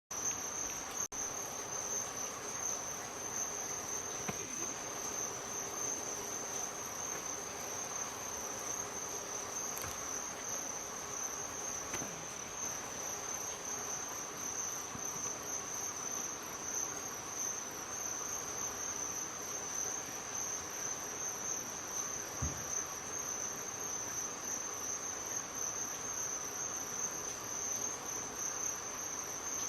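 Steady, high-pitched insect chorus shrilling without a break in the African bush.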